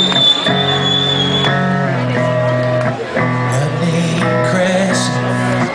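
Live guitar playing the slow instrumental intro of a rock song, with the chord changing about every second and a high note held near the start.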